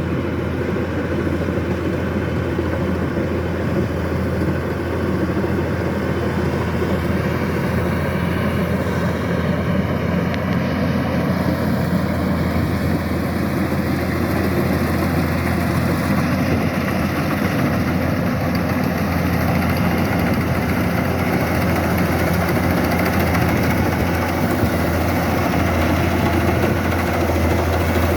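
Kubota DC-105X combine harvester's diesel engine running steadily at constant speed while harvesting rice, a continuous drone that grows slightly louder toward the end.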